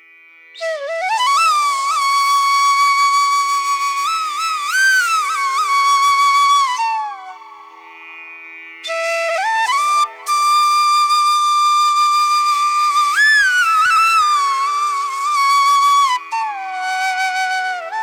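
Background music: a solo flute melody with pitch slides and held notes over a soft steady drone, in two long phrases separated by a short lull.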